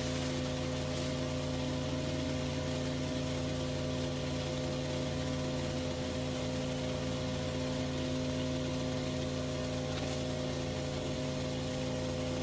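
Petrol-engined pressure washer running steadily at a constant hum, with an even hiss over it.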